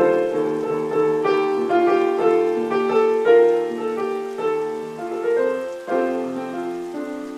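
Solo improvised piano: a flowing stream of single notes and chords in the middle register, each struck and left to ring and fade.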